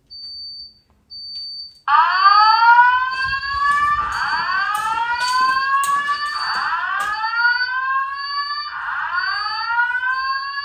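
Fire-alarm speaker-strobe sounding the rising whoop alert tone of a Simplex voice evacuation message, the tone between spoken announcements. Four whoops about two seconds apart start about two seconds in. A thin, high-pitched tone keeps cutting in and out underneath.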